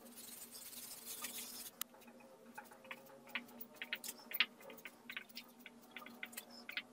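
Whiteboard eraser rubbing across the board for about the first second and a half. Then a dry-erase marker writing in short strokes, with faint squeaks and taps on the whiteboard.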